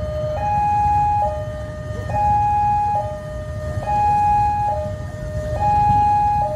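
Railway level-crossing warning alarm sounding its two-tone electronic signal, alternating steadily between a higher and a lower tone a little under once a second, warning that a train is approaching. A low rumble of waiting traffic runs underneath.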